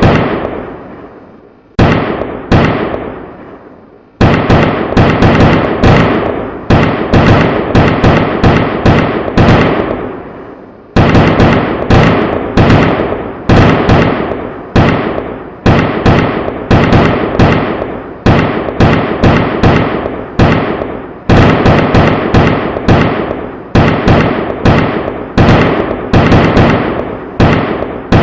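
Firecrackers exploding in rapid strings of loud sharp bangs, many a second, with a few short lulls where the echo dies away.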